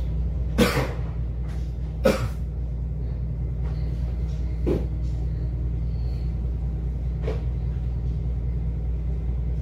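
Ferry's engines running with a steady low rumble, with four sharp knocks a couple of seconds apart, the first two the loudest.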